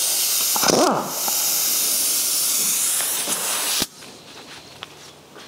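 Pneumatic wrench running on a rusty nut on an old starter motor's end cap, its exhaust air hissing steadily until it cuts off suddenly about four seconds in.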